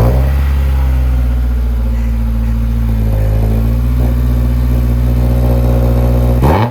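Honda S2000's 2.0-litre four-cylinder engine idling steadily through a newly fitted Invidia Q300 cat-back exhaust, just after starting up. Near the very end the revs briefly dip and then climb.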